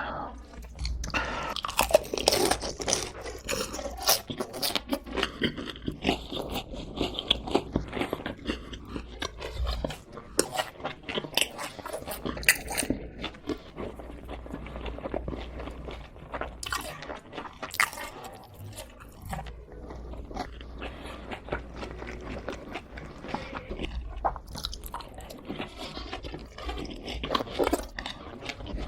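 Close-miked eating of crispy fried chicken: irregular crunching bites and chewing throughout.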